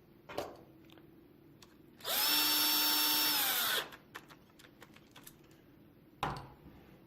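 Cordless power screwdriver driving an M3 flathead screw: it spins up, runs steadily for under two seconds and winds down. A short knock comes before it and another near the end.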